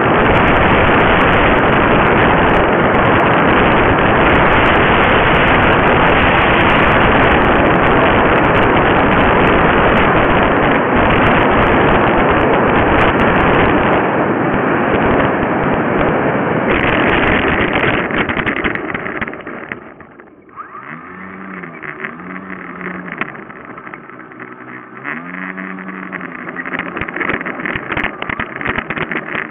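Loud, steady air and propeller rush on a model aircraft's onboard camera microphone in flight, dying away about eighteen to twenty seconds in as the aircraft lands in grass. After that it is quieter, with a fainter hum that rises and falls in pitch twice.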